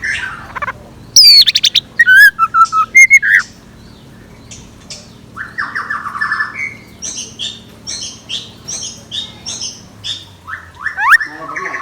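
Scarlet minivet calling: a burst of loud sweeping whistles and fast trills a second in, then a run of short, high, quieter notes, with rising whistles again near the end.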